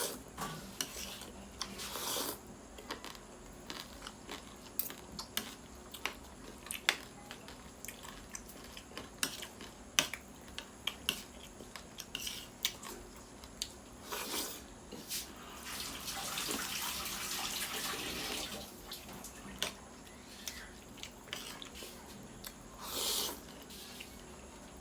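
Close-up eating sounds of a person eating thukpa noodle soup: wet chewing and many small mouth and slurp clicks, with a steadier noisy stretch of about two seconds in the middle.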